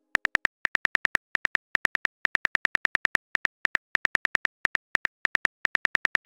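Phone keyboard typing sound effect: a quick run of short, identical clicks, about seven or eight a second, with brief pauses between words as a text message is typed out.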